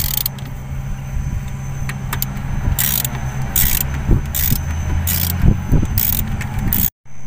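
Ratchet wrench tightening the circle rotation gear cover bolts on a motor grader: short ratcheting clicks repeat about every second, over a steady low engine-like hum. The sound breaks off for a moment near the end.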